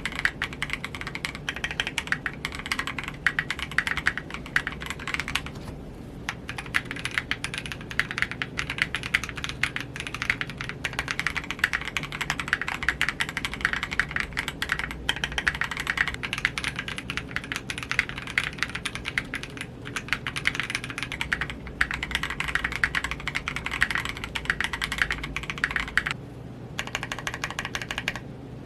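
Fast, continuous typing on a 60% mechanical keyboard: lubed Gazzew Boba U4T tactile switches on a polycarbonate plate in an aluminium case, with PBT keycaps. The typing breaks off briefly several times, where the keycap set switches between Cherry-profile and KAT-profile.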